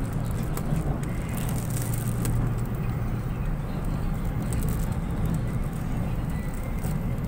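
Steady running noise of an LRT Line 2 light-rail train heard from inside the car as it travels along the elevated track: a constant low rumble with faint light clicks and rattles.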